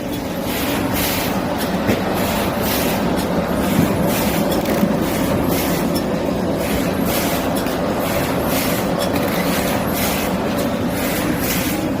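Shrink-wrapping machine running: a steady mechanical hum with a quick, regular pulsing hiss and clatter.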